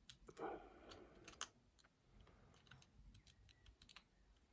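Faint, irregular small metallic clicks and ticks from a Monkey Paw lock pick working the pins inside an RS padlock's cylinder.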